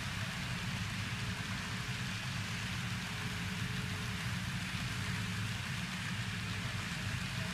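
Empty HO-scale hopper cars, scratchbuilt, rolling along model railroad track. Their small wheels make a steady rolling rumble and clatter on the rails.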